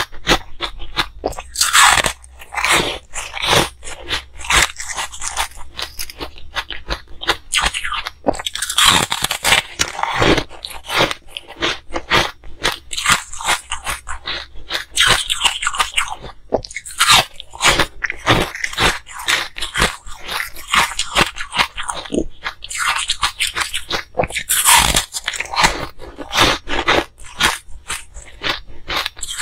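Close-miked biting and chewing of hard ice: a continuous run of crisp crunches and cracks, with louder clusters of bites every few seconds.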